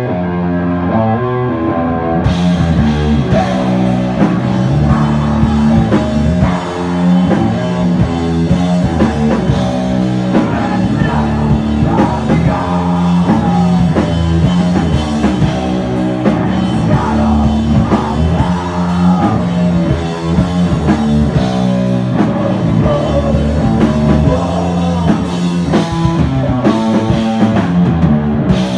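Loud live hardcore band playing a distorted electric guitar riff, with the drum kit and cymbals coming in about two seconds in and driving on under it.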